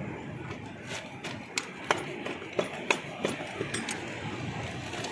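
A hammer tapping lightly on a metal boat-engine part: about a dozen short, irregular knocks, a few tenths of a second apart, starting about a second in.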